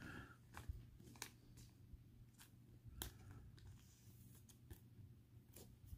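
Near silence with faint, scattered soft ticks and rustles of a trading card being slid into a thin plastic card sleeve, over a low steady hum.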